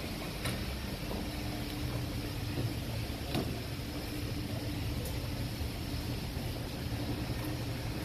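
Self-serve car wash foaming brush spraying soap, with the bay's pump running: a steady hiss over a low hum, with a few faint clicks.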